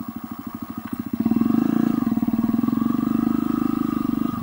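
Motorcycle engine running at low revs with an even beat. It is throttled up about a second in, grows louder and holds there, then eases off just before the end.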